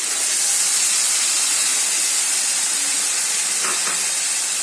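Tomato puree poured into hot oil in a kadai, sizzling with a loud, steady hiss.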